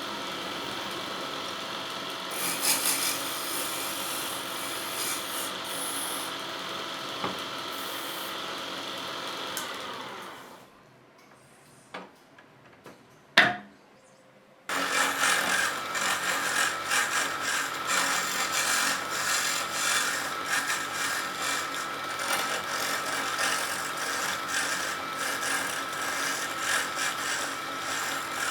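Wood lathe running with a turning chisel cutting the spinning wood: a steady motor whine under rough scraping and rasping. It stops midway for about four seconds, broken by a sharp knock, then resumes with denser, scratchier cutting.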